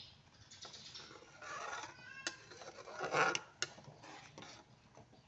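A steel ladle stirring boiling broth in a metal pot: liquid sloshing and splashing, with a few sharp clinks of the ladle against the pot, one about two seconds in and two close together a little after three seconds.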